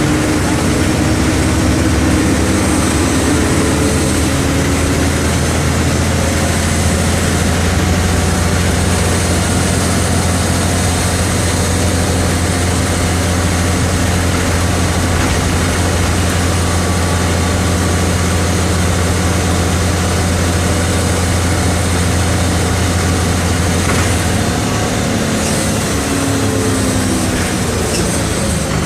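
Mercedes-Benz OM 457 LA turbo-intercooled inline-six diesel of an articulated city bus running steadily under way. Its note shifts in pitch in the first few seconds and again near the end.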